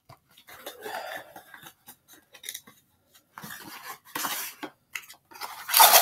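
A cardboard box of baseball card packs being opened and its wrapped packs handled: irregular scraping, rustling and small clicks, with a louder ripping rustle near the end.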